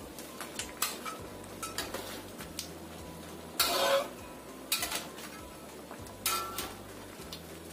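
A cooking utensil knocking and scraping against a pot of crab simmering in sauce, in a string of separate clinks with the loudest about three and a half seconds in.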